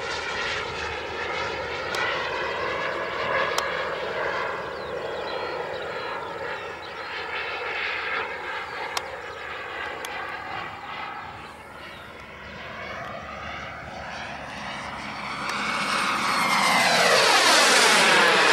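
RC model Vampire jet's turbine engine in flight: a steady rushing whine with a faint high tone. It fades a little midway, then swells into a loud close pass near the end, with a sweeping, falling tone as it goes by.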